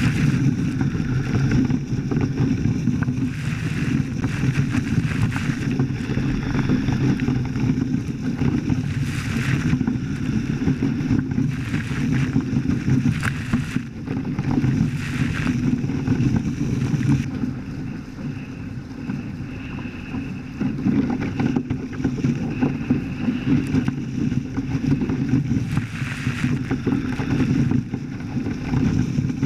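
Wind buffeting the microphone and water rushing past the hulls of a Hobie Cat 14 catamaran under sail: a steady low rumble with splashes now and then.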